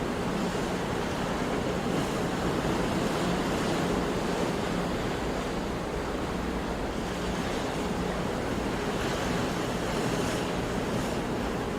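Sea waves washing on a shore, a steady rush with gentle swells and no distinct breaking crashes.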